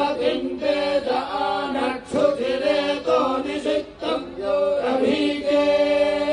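Vedic mantras chanted in unison by a group of priests, recited phrase by phrase on a few set pitches. Near the end the voices settle on one long held note.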